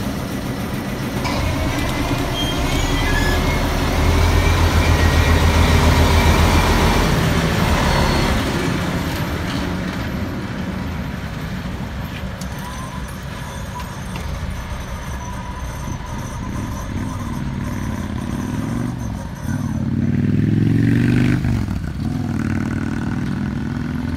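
ČKD class 742 ('Kocúr') diesel locomotive's engine running as the locomotive rolls past at low speed, loudest a few seconds in. About twenty seconds in, the engine revs up briefly with a rising note, then settles again.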